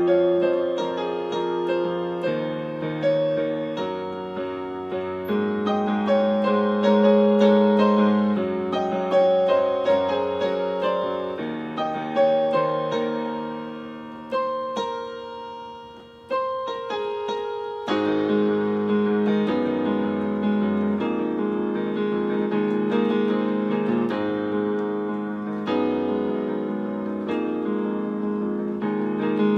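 Piano voice of an electronic keyboard playing a solo piece of chords and melody. About halfway through it thins to a few quiet notes, then comes back louder with fuller sustained chords.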